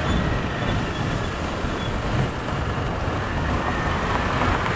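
Steady wind rumble on the microphone mixed with road noise while riding a bike along a paved road.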